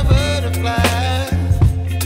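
Background music with a steady drum beat, a deep bass line and a melody on top.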